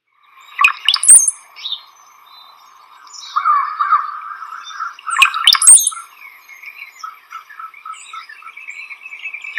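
Recorded song of a male brown-headed cowbird: a bubbly, gurgling, water-like run of low notes sliding up into a thin, very high whistle, given twice, about a second in and again about five seconds in. Fainter repeated notes sound between the two songs.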